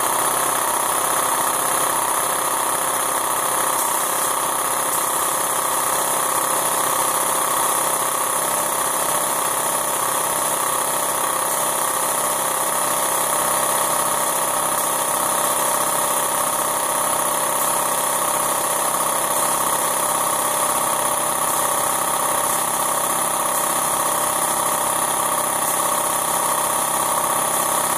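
Air compressor running steadily, with the air hiss of a gravity-feed spray gun laying on epoxy primer.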